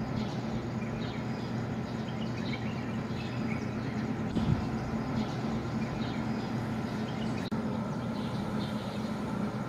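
Outdoor morning ambience: a steady low hum with birds chirping in scattered short calls over it.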